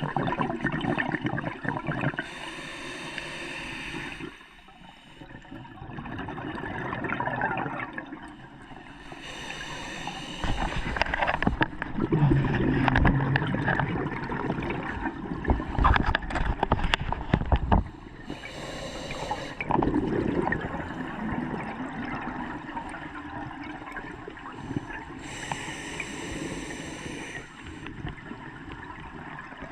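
Scuba diver breathing underwater through a regulator: four slow breaths, each a hissing inhale followed by a long stretch of exhaled bubbles gurgling.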